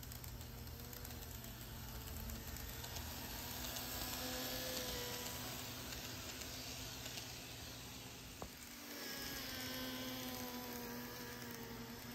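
N gauge model train (JR West 223 series) running along the track past the camera: a soft rolling rattle of wheels on rail with a faint motor whine, swelling as the train comes close about four seconds in. A single sharp click about two-thirds of the way through.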